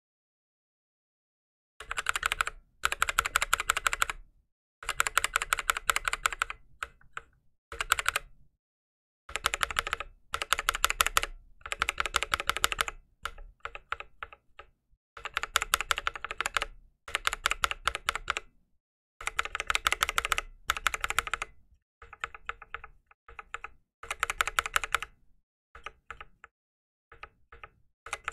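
One key on an aluminum NK65 keyboard with NovelKeys Cream linear switches and GMK keycaps, pressed rapidly over and over in short bursts separated by brief silences. The switch is first stock, then lubed with Krytox 205g0 from about a third of the way in, and fitted with 0.125 mm TX films as well for the last third.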